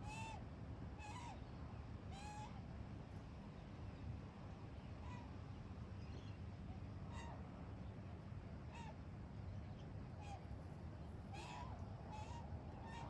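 Australian magpie giving short calls, about one a second, each bending up and then down in pitch, over a steady low rumble.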